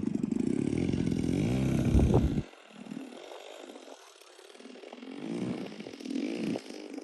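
Single-cylinder two-stroke DLE 55 petrol engine of a large RC model plane, loud on a close pass with its pitch bending as it goes by, then cut off abruptly about two and a half seconds in. Afterwards it is heard faintly, its pitch rising and falling as the plane flies at a distance.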